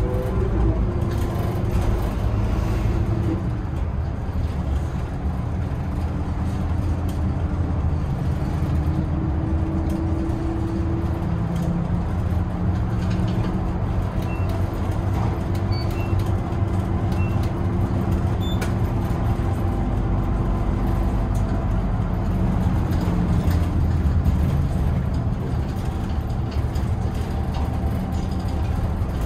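Hino Rainbow II medium-size bus with automatic transmission on the move, heard from the front of its cabin: a steady engine drone and road rumble, its tone drifting slowly with speed.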